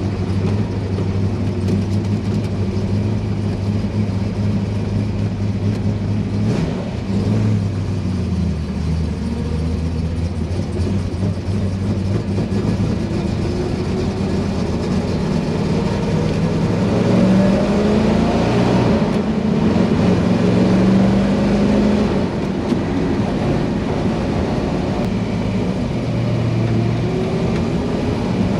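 1963 Corvette's 327 small-block V8 running on a road drive. Its pitch drops about seven seconds in, climbs steadily as the car accelerates, and then shifts up and down several more times.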